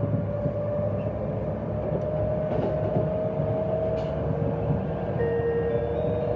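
Running noise inside a carriage of a JR 253 series limited express train: a steady low rumble with a held tone above it. About five seconds in, the onboard chime that comes before the announcement begins.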